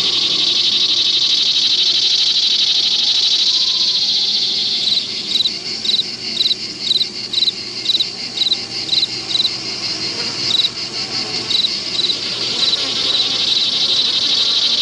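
Insects chirping: a steady, dense high trill, joined from about five seconds in by one louder chirp repeating about twice a second.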